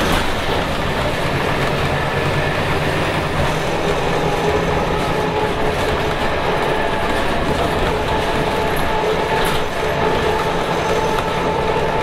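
Rear-mounted Scania DC9 9.3-litre inline five-cylinder turbo diesel of a Scania K280UB city bus, running steadily under way, heard from inside the passenger cabin with a steady whine over the engine note.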